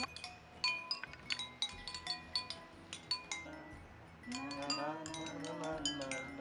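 Seven water-tuned ceramic bowls of a jaltarang-style instrument struck with thin sticks by several players: quick, overlapping clear ringing notes at different pitches. A voice joins in about four seconds in.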